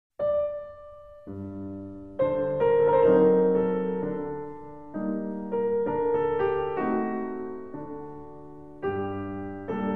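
Slow piano music: a single note, then a series of chords, each struck and left to ring and fade.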